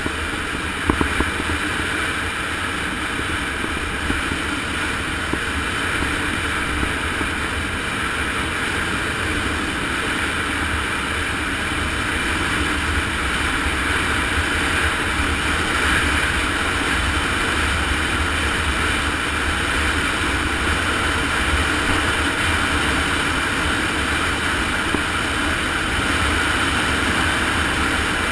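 Steady rush of wind and tyre noise from a fast downhill ride on asphalt, with a couple of small knocks about a second in.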